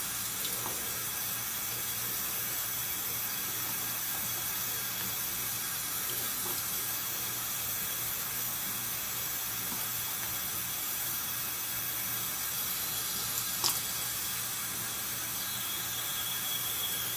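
Tap running steadily into a sink, an even rush of water, with one short click late on.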